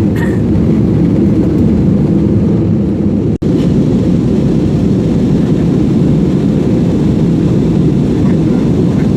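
Aircraft noise: a loud, steady low rumble that drops out for an instant about three and a half seconds in.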